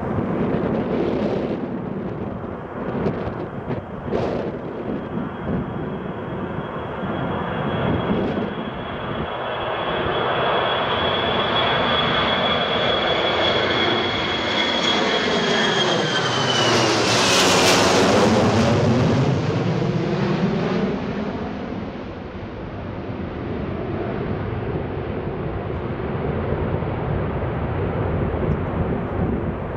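An Ilyushin Il-78's four D-30KP turbofans pass low overhead. A steady high fan whine grows louder, then drops in pitch as the aircraft goes over, the loudest moment a little past halfway. A broad jet rumble follows and slowly fades as it flies away.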